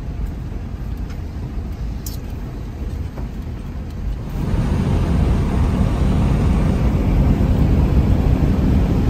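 A four-wheel-drive vehicle driving with a steady low rumble that grows louder about four seconds in.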